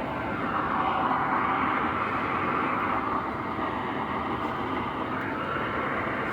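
Furnace running: a steady rushing noise that swells a little louder just after the start and holds.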